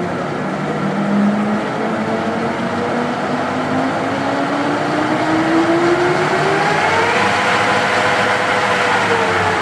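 American Pacemaker engine lathe running under power, the spindle and heavy 18-inch four-jaw chuck spinning. Its gear whine climbs slowly and steadily in pitch as the spindle speeds up, levels off, then dips slightly near the end.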